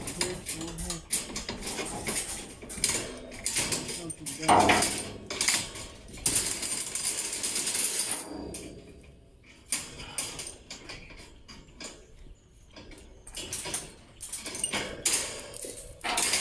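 Metal clanking and rattling in irregular knocks, the loudest clank about four and a half seconds in, followed by a couple of seconds of rushing noise.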